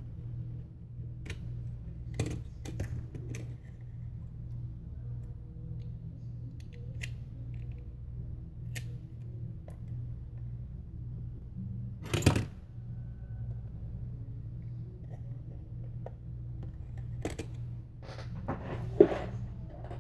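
Small scattered clicks and taps from handling adhesive strips and tools on a phone frame, over a steady low hum. A sharper click comes about twelve seconds in, and another near the end.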